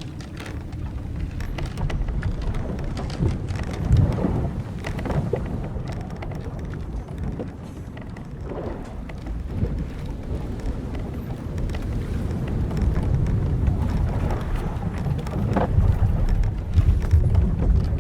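Old wooden sailing ship's timbers and rigging creaking now and then over a low, steady rumble of wind and sea that swells and eases.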